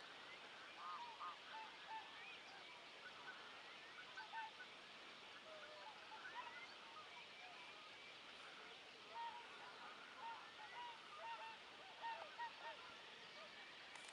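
A flock of wild geese calling: a faint chorus of many short, overlapping honks, thickest in the second half.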